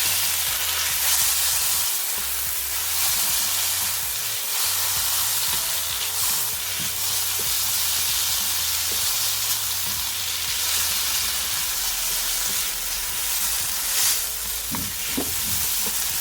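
Soaked rice-stick noodles and garlic sizzling in a hot wok while being stirred and tossed, the hiss swelling with each stir.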